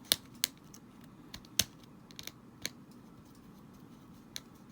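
Small screwdriver working a tiny screw out of a Joy-Con controller: scattered sharp light clicks of metal tool on screw and plastic, most of them in the first two seconds.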